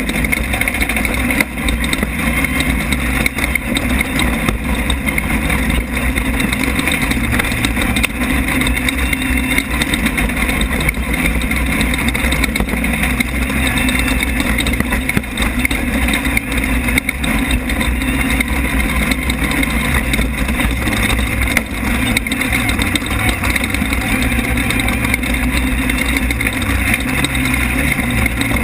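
Off-road race car's engine running hard, heard from inside the car, its pitch rising and falling with the throttle, over constant rattling and knocking.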